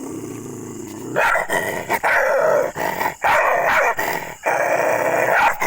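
Dog growling low, then from about a second in barking loudly and aggressively in a rapid run of repeated barks.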